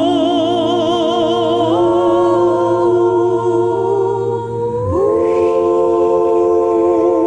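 Music: a slow passage of long held chords with vibrato, moving to a new chord about a second and a half in and again about five seconds in.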